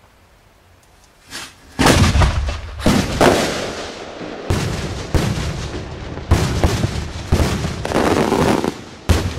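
Large cylinder firework shells going off at close range: after a quiet start, about ten heavy booming salute reports, beginning about two seconds in and coming every half second or so, each ringing on into the next.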